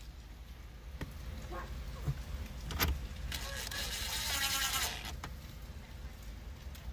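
DeWalt cordless drill-driver motor whining steadily for about a second and a half, driving in a screw that fastens the stereo's dash trim back in place. A sharp click comes just before it.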